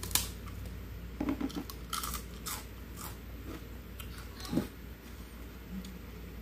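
A sharp crisp bite into a kerupuk cracker, followed by several crunchy chewing sounds over the next few seconds.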